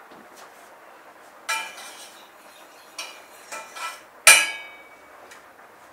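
Metal saucepans and lids clinking on a stovetop: a few light clinks, then one louder ringing clang about four seconds in.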